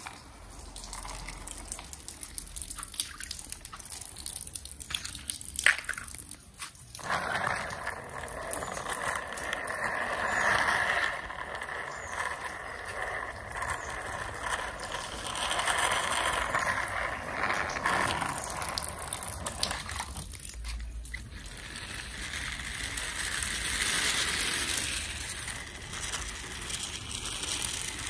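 Small plastic toy vehicles pushed by hand along a wet concrete track, their wheels rolling and scraping in a steady rough noise. The noise is light with a few clicks at first and becomes steady and louder about seven seconds in.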